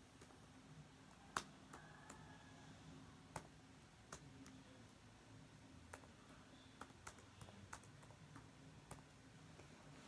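Near silence broken by about a dozen faint, irregular clicks at a computer, the loudest about a second and a half in, over a faint low hum.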